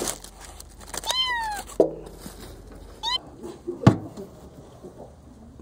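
Kitten meowing: one long, high meow falling in pitch about a second in, and a short one about three seconds in. Two sharp knocks come between and after the meows, the second the loudest sound.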